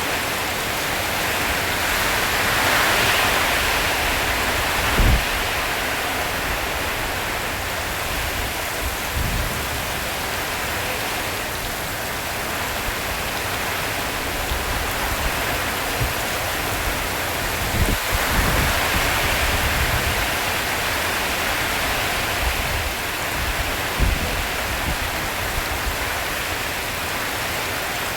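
Heavy rain on a tin roof: a steady, dense patter that swells twice, with three short dull thumps.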